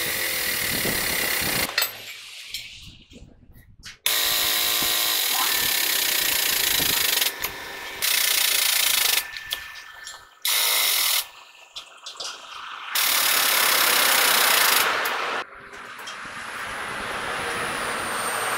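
Air-over-hydraulic foot pump running in about five bursts of one to three seconds each, starting and stopping abruptly with a loud hiss, as it drives a hydraulic tool on a truck wheel hub.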